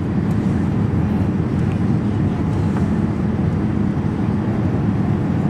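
Steady cabin noise of a jet airliner on approach: engine and rushing-air rumble heard from inside the passenger cabin, heaviest in the low range, with no breaks or distinct events.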